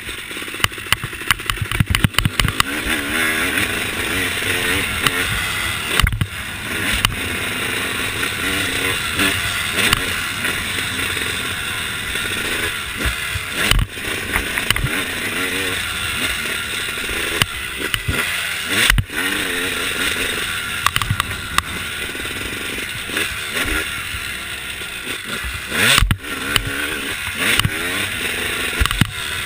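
Motocross dirt bike engine being ridden hard, revving up and falling back again and again through the gears, with wind rushing over the microphone and frequent sharp knocks from the bumps; a loud jolt about 26 seconds in.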